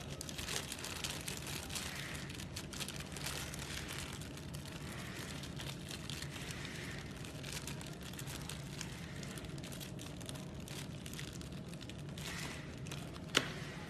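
Clear plastic packet crinkling and rustling as gloved hands handle it and open it, over a faint low steady hum. A single sharp click comes about half a second before the end.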